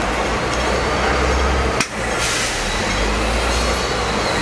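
Hong Kong double-decker electric tram running on its rails, heard from on board: a steady rumble with a low hum, broken by one sharp clack a little under two seconds in.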